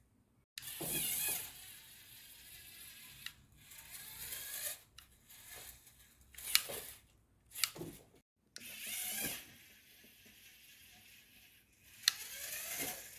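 Small Lego Technic electric motors whirring in short bursts as the buggy drives and steers, with sharp plastic clicks; the whirring starts and stops abruptly several times.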